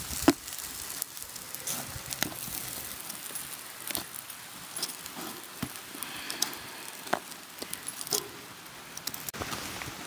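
A metal utensil clinking and scraping against a camp pan and plate as cooked chicken is lifted off a small fire, with a sharp clink just after the start. Scattered ticks and crackles sit over a steady hiss of the fire and light rain.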